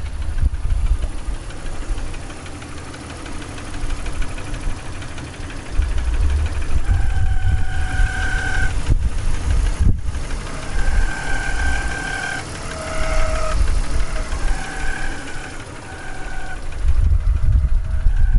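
A 2002 BMW 525i's 2.5-litre inline-six idling steadily, with a strong low rumble throughout. Short high whining tones come and go in the second half, and there is a single click about ten seconds in.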